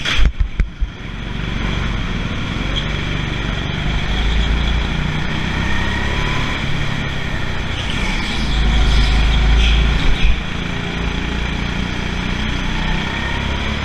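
Indoor hire go-kart driven at speed, heard from a camera mounted on the kart: a steady drone from the kart with a strong low rumble and faint rising and falling pitch. A few short knocks come right at the start.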